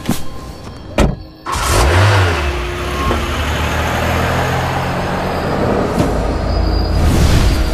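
Two sharp knocks, then about a second and a half in a car engine revs and settles into a steady run as the car drives away, engine drone and road noise continuing.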